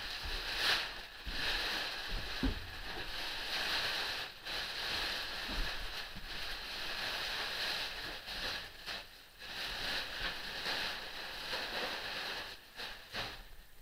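Plastic wrapping being pulled and crumpled off a metal lathe, crackling and rustling steadily with a few brief pauses.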